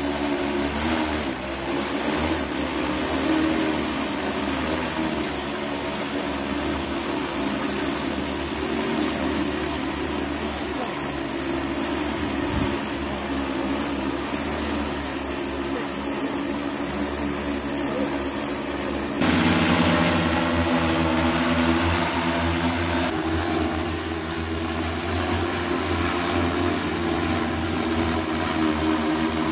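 Propellers of a JOYANCE JTC30 roof-cleaning drone, a large quadcopter, humming steadily as it hovers and flies while spraying. A little past the middle the sound jumps suddenly louder and brighter and holds there.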